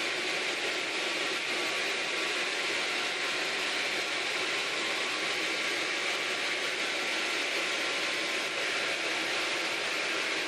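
Sawmill running steadily as it saws through a nyato log, a continuous even noise with no change in level.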